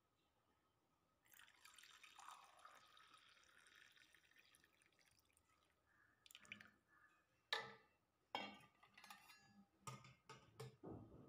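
Hot water poured from a steel pan into a small steel bowl, a steady trickle starting about a second in. It is followed by several sharp clinks and knocks of the steel vessels, the loudest a little past halfway.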